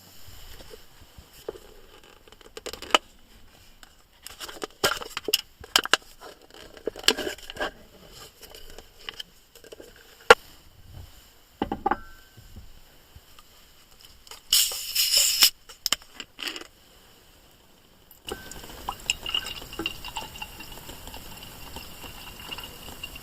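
Small objects being handled at close range: scattered clicks, knocks and light clinks, with a short hissing burst about two-thirds of the way through. Near the end the sound switches abruptly to a steady night-time outdoor background with a high, even, insect-like tone.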